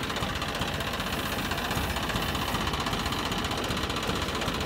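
Combine harvester running steadily, its engine and threshing machinery making an even, unbroken drone.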